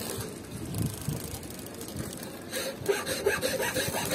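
Small hand saw cutting a strip of wood held in a bench vise, with back-and-forth strokes that become distinct and even, about three a second, from about halfway through.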